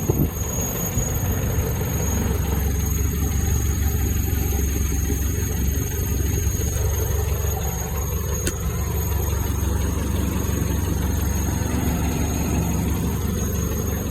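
Land Rover Series IIA engine idling steadily, with a squeak from the engine bay.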